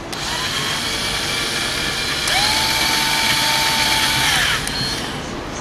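Power drill reaming powder coating out of a bicycle frame's zerk fitting hole. The motor whirs, comes up to full speed about two seconds in, holds there, then winds down near the end.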